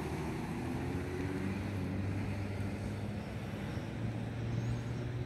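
A steady low motor drone under a soft outdoor hiss.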